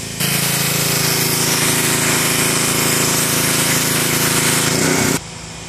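Pressure washer spraying a brick patio: a loud, steady hiss of the water jet over the hum of its pump. The spray cuts off suddenly about five seconds in, leaving a quieter hum.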